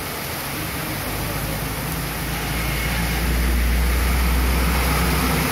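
Heavy rain pouring down on a wet street, a steady dense hiss. A low rumble builds about a second in and is strongest in the second half.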